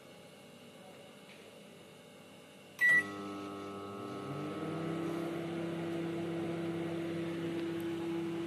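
Microwave oven keypad beeps once as the button is pressed. The oven then starts and runs with a steady hum that grows a little louder over its first couple of seconds.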